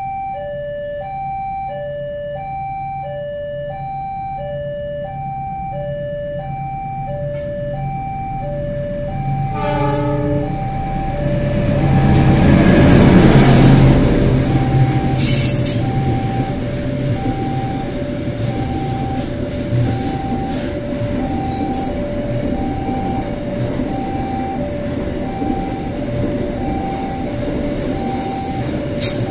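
Level-crossing warning alarm sounding an alternating two-tone signal, about one cycle a second, all the way through. About ten seconds in a CC206 diesel locomotive gives a short horn blast, passes loudly a few seconds later, and its container freight wagons then roll by with a steady rumble, regular wheel clicks and a brief squeal.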